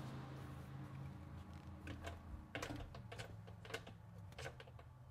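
Faint, irregular light clicks and taps of small metal parts, a bolt or rod handled at the front of a V8 engine, over a steady low hum.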